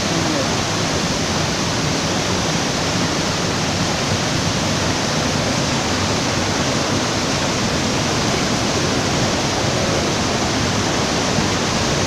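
Waterfall's white water cascading over large boulders: a steady, unbroken rush of water.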